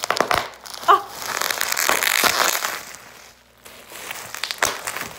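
Plastic bubble wrap being twisted and squeezed by hand, crackling and popping in a dense run of sharp cracks, easing off briefly a little past the middle before a few more pops.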